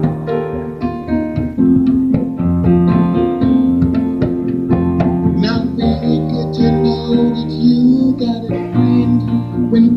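Live band music carried by an electric keyboard playing chords and melody, with the tabla drums struck along with it.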